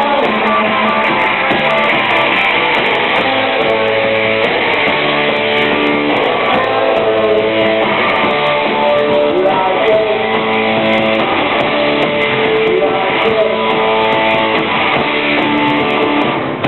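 Rock band playing live: an instrumental stretch with strummed electric guitars over a steady backing, no singing.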